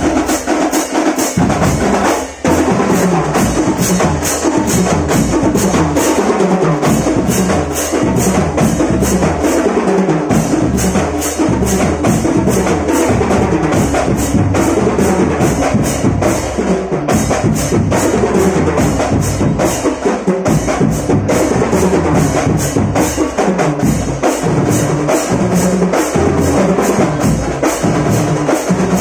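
Marching drumband playing a fast, steady drum pattern on snare drums and bass drums, with a brief break about two seconds in.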